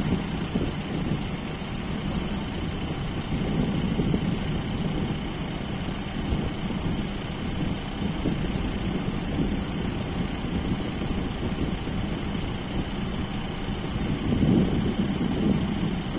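Military aircraft's engine droning steadily as it takes off and climbs away in the distance, swelling briefly near the end.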